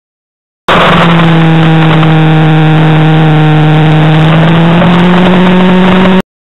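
Motorcycle engine heard through an onboard camera, very loud and distorted, holding steady revs through a corner, dipping slightly in pitch and then rising again near the end. It starts abruptly under a second in and cuts off abruptly shortly before the end.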